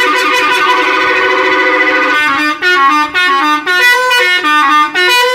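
A bus's telolet horn, a bank of musical air horns, plays a long tune. It holds a loud chord for about two seconds, then steps through a melody of short notes.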